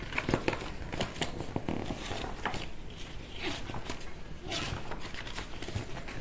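Irregular light clicks, taps and brief rustles, scattered unevenly.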